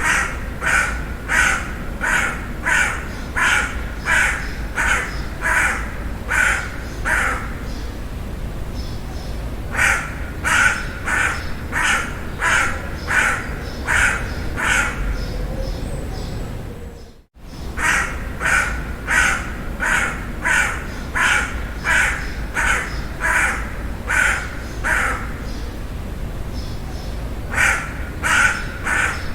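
Crow cawing in long runs of quick, evenly spaced caws, about one and a half a second, with short pauses between runs and a brief cut-out about seventeen seconds in.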